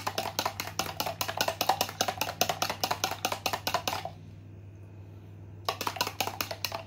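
Eggs and milk being beaten by hand in a plastic mixing bowl: the utensil clicks quickly against the bowl, about eight strokes a second. The beating stops about four seconds in and resumes briefly near the end.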